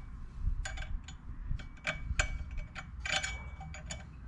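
Irregular sharp metallic clicks and clinks from a hand tool tightening a small screw, a dozen or so in four seconds, some with a brief metallic ring.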